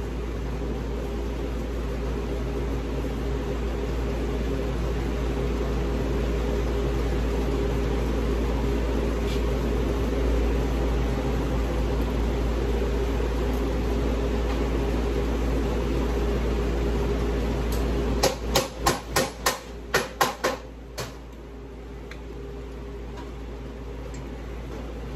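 A motor or fan hums steadily with several tones. About three-quarters of the way through comes a quick run of about ten short, sharp hissing bursts, and after them the hum is quieter.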